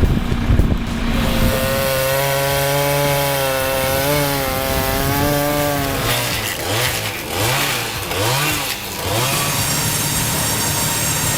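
Chainsaw engine running at a steady pitch, then revved up and down about four times in quick succession before settling back to a steady note.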